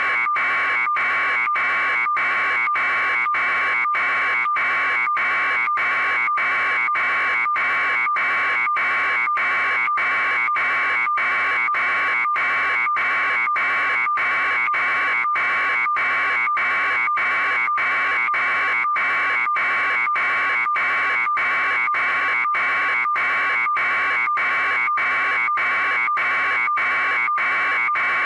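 A steady, harsh buzzing tone, cut by brief, evenly spaced dropouts about twice a second.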